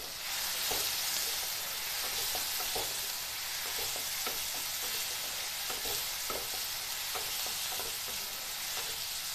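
Tomato, garlic, ginger and green chillies frying in ghee in a non-stick kadhai: a steady sizzle, with a spatula scraping and tapping the pan as it stirs, a few strokes a second.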